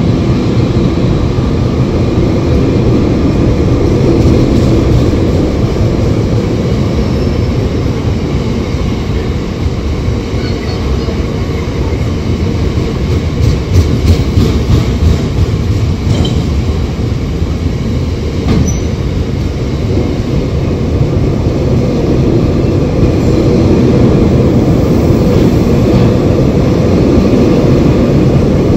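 Long rake of bogie stone hopper wagons of a freight train rolling past close by at steady speed: a continuous low rumble of wheels on rail, with faint wheel squeals now and then.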